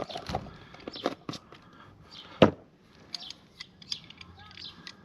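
Light clicks and knocks of small parts and tools being handled at a motorcycle wheel rim, with one sharper knock about two and a half seconds in.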